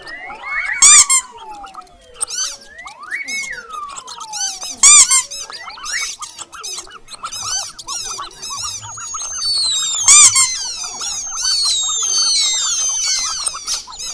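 Mouse squeaking sound effects: repeated high squeaks and chirps, some long falling squeals, and louder squeals about one, five and ten seconds in. A rapid run of short falling chirps fills the last few seconds.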